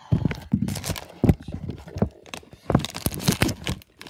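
Recording device being picked up and moved by hand: fingers rubbing and knocking on the microphone in a fast, irregular run of clicks, scrapes and bumps.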